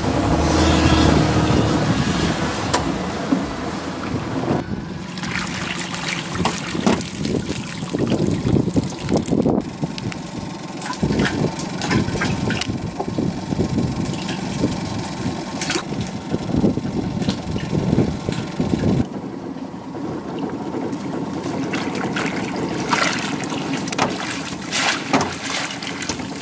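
A boat motor running with wind on the microphone, then a string of splashes, knocks and rattles as minnows are handled in a plastic holding barrel and a wire minnow trap is pulled from the water.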